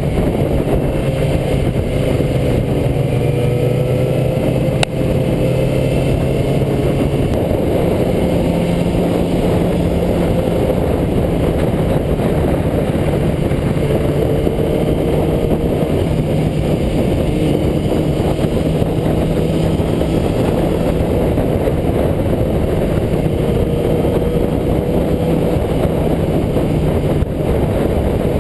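Sportbike engine running steadily under way, its pitch drifting slightly as the revs change, with wind rushing over the bike-mounted camera's microphone. A single brief click about five seconds in.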